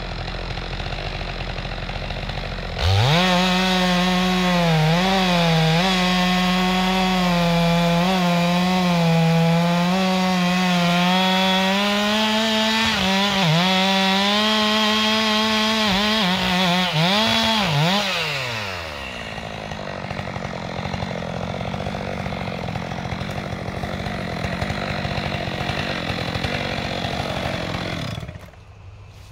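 Stihl MS 462 C two-stroke chainsaw throttled up to full revs about three seconds in and cutting, its pitch dipping and recovering again and again as the chain takes load in the wood. About eighteen seconds in the revs fall away to a lower, steadier running sound that cuts off shortly before the end.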